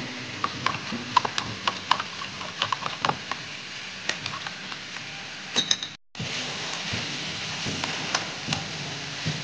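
Chopsticks stirring liquid in a plastic measuring jug, clicking against its sides several times a second. After a sudden cut about six seconds in, meat and vegetables sizzle steadily in a frying pan as chopsticks toss them.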